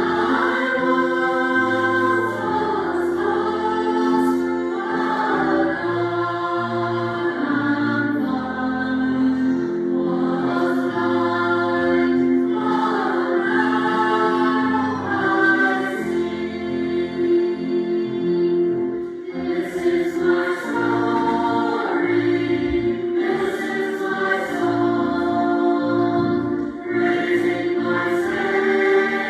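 Church choir singing a hymn medley in held, sustained notes over low accompanying notes.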